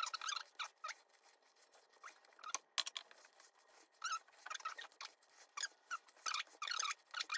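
Spatula folding flour into whipped egg-white meringue in a stainless steel bowl: a series of short, irregular wet strokes through the mixture and against the bowl, roughly two a second.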